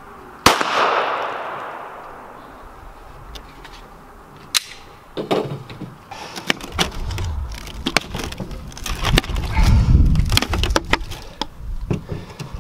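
A single 9mm pistol shot from a Glock 19 about half a second in, with a short echoing tail. From about five seconds on, a click, then rustling and low bumps as hands handle the sand bucket and dig into the sand.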